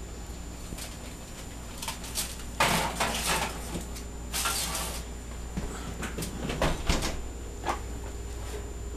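Kitchen handling noises at the oven and cookware: scattered clicks and knocks, then two louder scraping, sliding sounds about two seconds apart, over a steady low hum.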